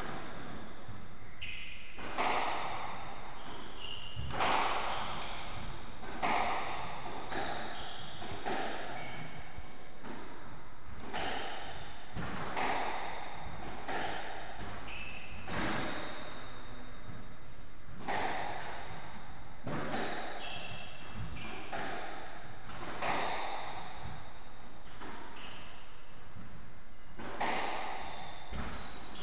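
Squash rally: the ball strikes off rackets and the court walls about every one to two seconds, with short squeaks of court shoes on the wooden floor between the hits.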